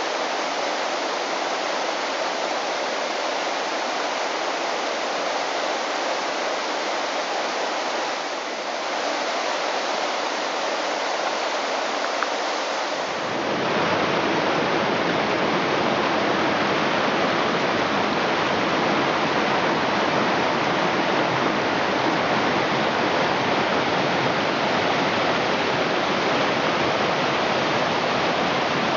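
Shallow stream water rushing over rocks, a steady hiss. A little under halfway through it turns into a fuller, deeper and slightly louder rush.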